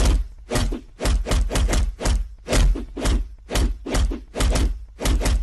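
Background music with a heavy, steady beat: sharp hits about twice a second over deep bass.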